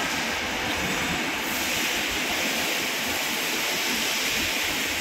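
Steady factory machinery noise: an even rushing hiss with no distinct knocks or strokes.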